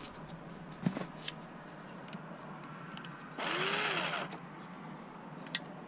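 A power drill-driver runs once for about a second, its pitch rising and then falling, as it backs out a steering-column cover screw. A few light clicks come before and after.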